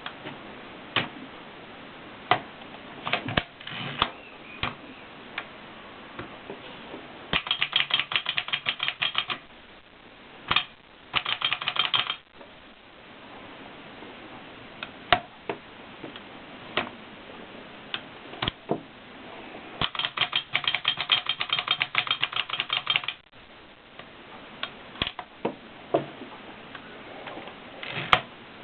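A 1920s Erika manual typewriter being typed on: its keys strike with sharp clacks, some one at a time with pauses between, others in quick runs of a second or more, two of them near the middle and a longer one about two-thirds of the way in.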